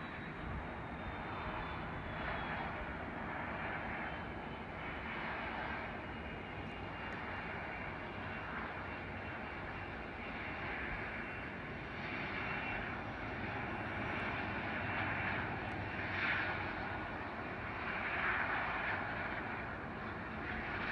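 Jet engines of a Boeing 767-300ER (Rolls-Royce RB211s) heard from afar as it rolls along the runway after landing. A steady engine noise that swells a little at times, with a faint whine slowly falling in pitch.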